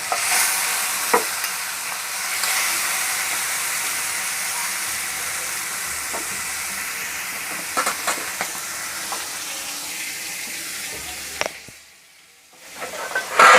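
Marinated chicken leg pieces shallow-frying in oil in a kadai on high flame: a steady sizzle with a few sharp clicks. The sizzle drops away briefly near the end, then comes back with a loud burst.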